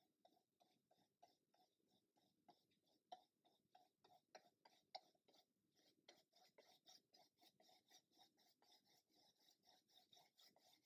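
Very faint, rapid scratching of a flat paintbrush dry-brushing paint across a textured cobblestone model surface, in quick, even back-and-forth strokes, several a second.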